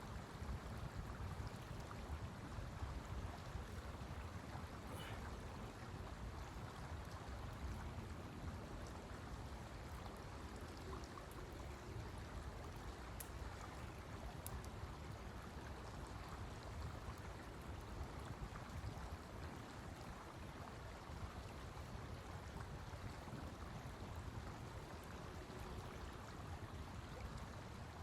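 Snowstorm wind rushing steadily, a low rumbling noise with a few faint ticks.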